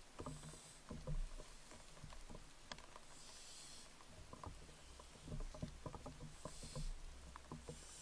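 Barn owl hissing calls, three short high-pitched hisses about three seconds apart, over faint scratching and clicking.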